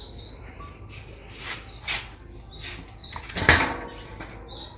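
Bicycle disc-brake parts and tools clinking and scraping, with several short metallic knocks and brief high rings, while brake spacers are fitted.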